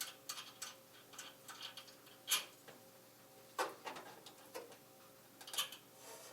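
Light clicking and tapping of small metal parts being handled as a wire's ring terminal is tried onto its post: a run of faint, fairly even ticks at first, then a few louder sharp clicks.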